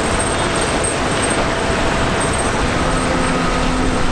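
Steady rush of water spraying onto a muddy toy wheel loader to wash the mud off.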